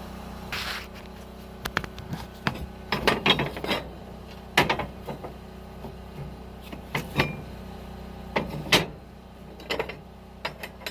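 Irregular clanks, knocks and scrapes of stove hardware being handled while hot embers are moved from a wood stove into a cook stove, over a steady low hum.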